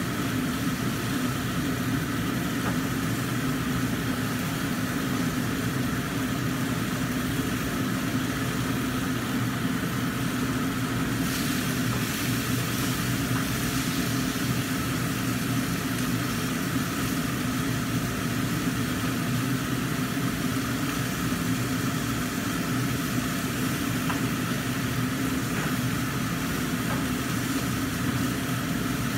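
Steady hum with an even hiss over it, from a kitchen range hood fan running above a gas stove while mackerel fries in a lidded wok.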